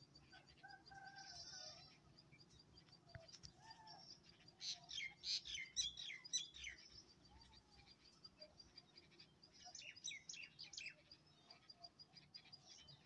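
Faint birds chirping, over a steady fast high ticking. The chirps come in two bursts of quick calls, one around the middle and a shorter one a few seconds later.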